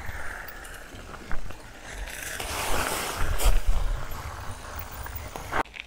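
Bicycles rolling, heard from a bike-mounted camera: wind rumble on the microphone and steady tyre noise, which grows louder and hissier about two seconds in as the tyres roll from asphalt onto gravel. A few light clicks sound, and the sound cuts off sharply near the end.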